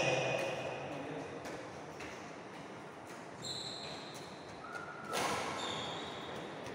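Sports shoes squeaking briefly on a wooden indoor court floor during a badminton rally, with a racket hitting the shuttlecock about five seconds in, echoing in the hall.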